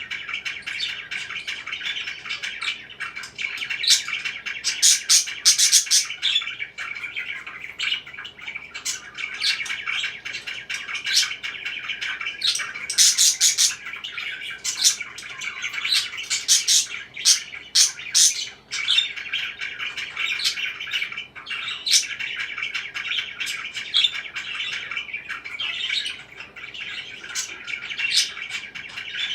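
Several pet parakeets chirping and chattering without pause, with frequent loud, sharp chirps standing out above the steady chatter.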